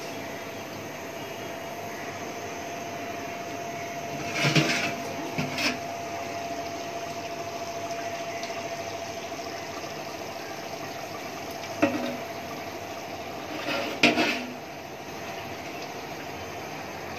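Steady rushing hiss of a gas burner on high flame under a large aluminium pot of simmering meat. A few metal clanks on the pot come in two pairs, the loudest about fourteen seconds in.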